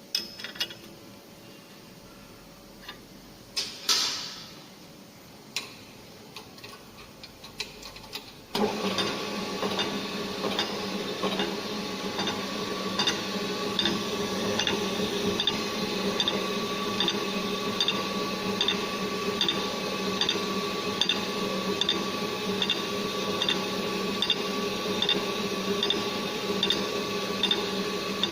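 A few clicks and knocks of hand adjustment, then about a third of the way in the GD 450Q saw blade grinder starts and runs steadily, a motor hum with several steady tones and a regular tick about once a second as it works through the teeth.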